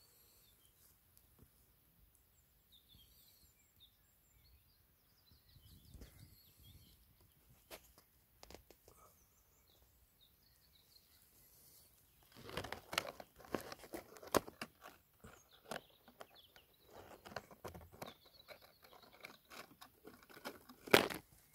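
Dry twigs and brushwood crackling and snapping close to the microphone. The sound comes in irregular clusters from about halfway through, with the loudest sharp snap near the end.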